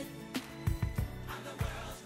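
Music with sustained instrumental tones and several drum hits.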